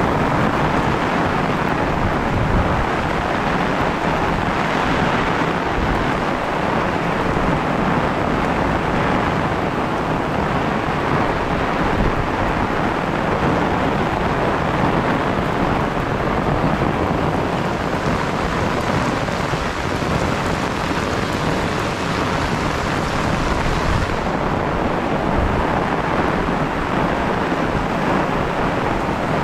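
Heavy rain falling steadily: a dense, even hiss with a constant low rumble underneath.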